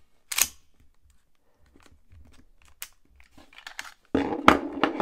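Airsoft CO2 1911 pistol being stripped down by hand. A sharp click about half a second in and light handling clicks, then the slide scraping off the frame rails for about a second, with a loud clack near the end.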